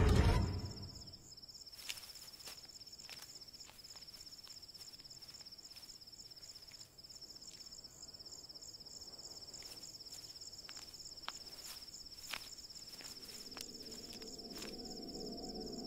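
Crickets trilling steadily in the night, a high, finely pulsing chirr, with a few faint ticks scattered through it. A low musical drone fades in near the end.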